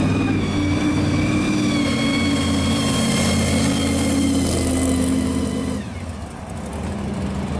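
Supercharged V8 of a 1970 Camaro pro street car driving by at low speed: a deep, steady engine note with a high blower whine on top. About six seconds in, the whine slides down in pitch and the sound drops off as the car pulls away.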